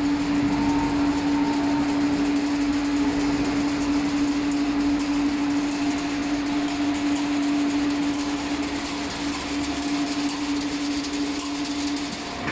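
Automatic chain link fence weaving machine running: a steady hum over a dense run of light ticks. The hum stops near the end.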